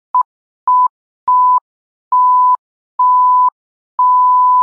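An electronic censor-style bleep tone, one pure high beep repeated six times with dead silence between. Each beep is longer than the last, from a short blip at the start to about a second long near the end.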